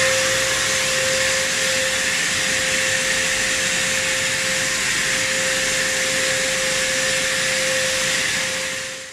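Vacuum cleaner motor running steadily, a constant airy hiss with a steady whine, sucking dust and debris out of tile grout joints. It fades out near the end.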